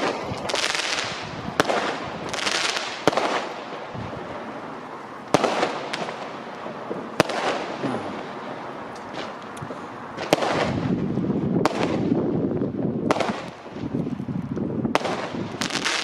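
Fireworks going off: sharp bangs every second or two, several followed by crackling and hissing as they burst.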